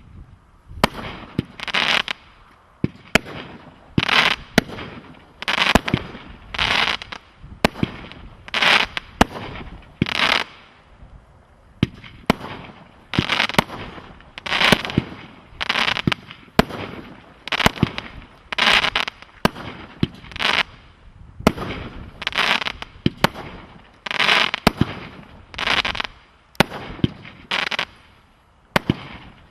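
A War of Wizards 36-shot firework cake firing its shots in steady succession, about one a second. Each shot is a sharp bang followed by a short rush of noise as it bursts.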